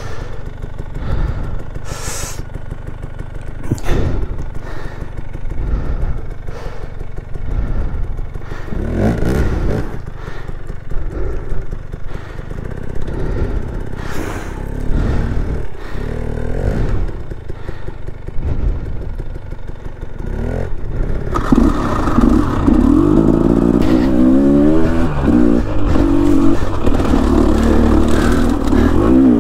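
Dirt bike engine running at low speed over rough trail, with frequent knocks, clatter and scraping as the bike works over rocks and roots. About 21 seconds in the engine gets louder and revs up and down repeatedly under throttle.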